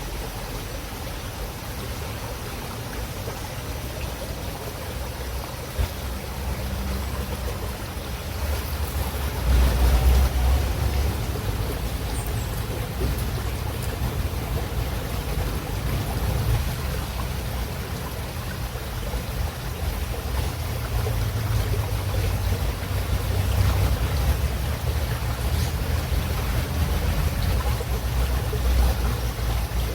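River water running steadily, an even rush of flowing water with a low rumble that swells now and then, strongest about ten seconds in.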